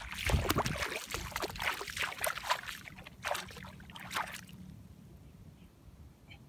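Bare feet splashing and sloshing through ankle-deep water over seagrass, a run of irregular wading steps that stops about four and a half seconds in as the wader crouches.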